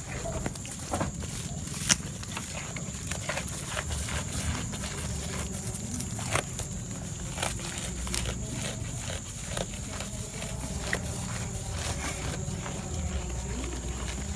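Goat chewing and tearing at fresh awar-awar leaves and stems, with irregular crunching, snapping and leaf rustling.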